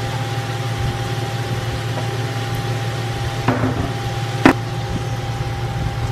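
A steady low hum with a constant higher tone above it, over a faint even hiss from the pan. A single sharp knock comes about four and a half seconds in, as the can of milk is brought over the skillet.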